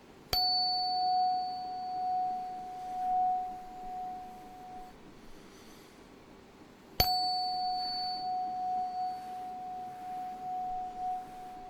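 A tuning fork struck twice, about seven seconds apart. Each time a sharp strike sets off one pure, steady tone that rings for about five seconds, with a faint high overtone that dies away sooner, and its loudness swells and fades as it rings.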